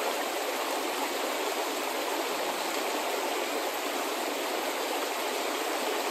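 Shallow creek running over rocks and boulders: a steady babble of flowing water.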